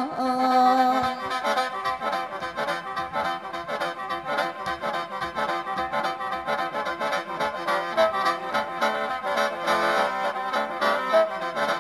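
Khaen, the Isan bamboo free-reed mouth organ, playing a fast instrumental passage of quick, rhythmic note runs over a steady drone.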